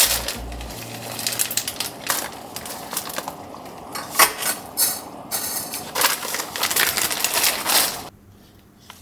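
Kitchen handling sounds: dishes, containers and utensils clattering and scraping in an irregular series of clinks. The clatter stops abruptly about eight seconds in, leaving a faint steady hum.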